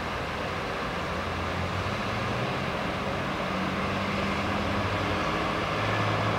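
A steady engine drone with an even rushing noise behind it, its low pitch drifting slowly up and down.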